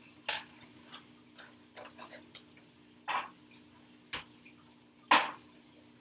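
Cicadas frying in oil and margarine in a frying pan, giving off scattered sharp pops and spits, three of them loud, the loudest near the end. A steady low hum runs underneath.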